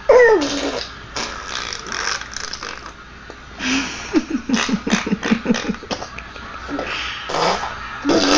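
A baby blowing raspberries, buzzing wet lips in several bursts, one of them a quick pulsing trill about halfway through. A short falling squeal at the very start.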